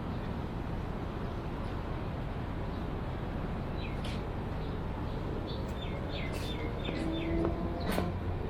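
Steady low rumble of a railway station's ambience. From about four seconds in, a small bird calls a run of short, quick downward-sliding chirps. Near the end there is a sharp click and a faint steady tone.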